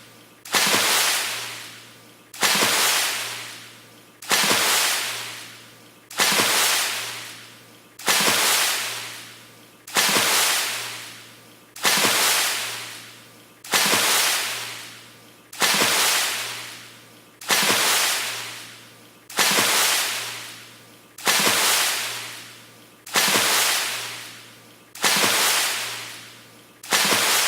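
The same fast water splash repeated as a loop, about one every two seconds, each hitting suddenly with a bright hissing spray and fading out over about a second and a half.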